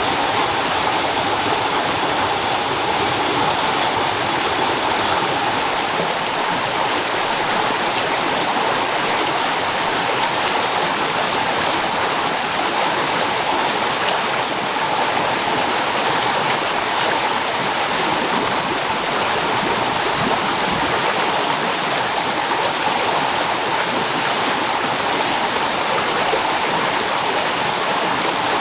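Shallow rocky stream flowing steadily, a constant rush and ripple of water.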